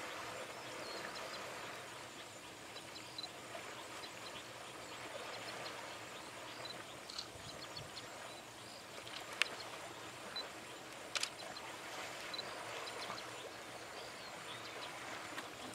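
Steady outdoor ambience with faint high chirps scattered throughout, and two sharp clicks a couple of seconds apart about two-thirds of the way in.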